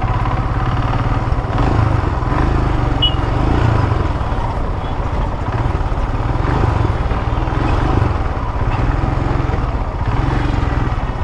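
Royal Enfield motorcycle engine running steadily under way, picked up by a helmet-mounted lavalier mic with wind noise mixed in.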